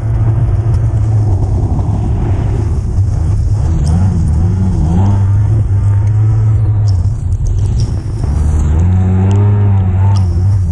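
Kawasaki SXR 800 stand-up jet ski's two-stroke twin engine running hard at racing speed, its pitch wavering through turns and dipping briefly about eight seconds in, with water spray rushing over the hull.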